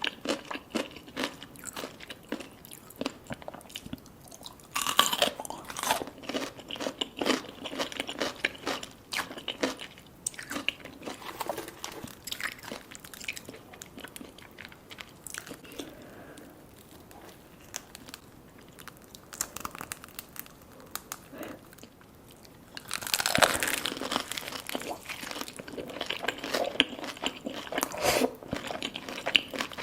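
Close-up eating sounds of crispy fried food being bitten and chewed: crackling crunches, with two loud bites about five seconds in and again near the twenty-three-second mark, and quieter chewing between them.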